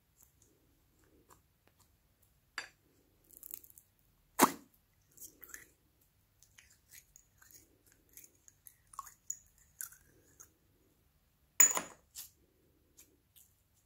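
Glossy slime being squeezed and stretched by hand, giving a string of small sticky clicks and crackling pops. Two louder pops stand out, one a third of the way in and one near the end.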